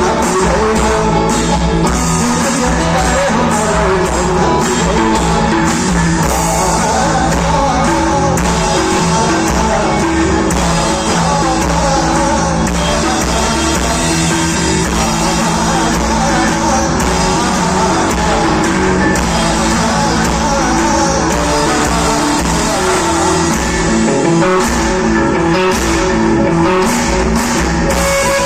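A rock band playing live at full volume, with guitars, bass and a steady drum beat, and singing over it.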